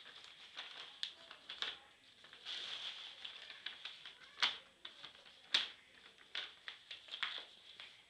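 Sheets of paper rustling and crackling as they are handled and sorted, then laid flat on a wooden board and smoothed by hand, with irregular light clicks and two sharper snaps near the middle.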